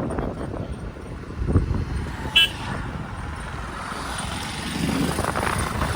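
Road vehicle noise, with one very short high horn toot about two and a half seconds in and a vehicle sound swelling up near the end.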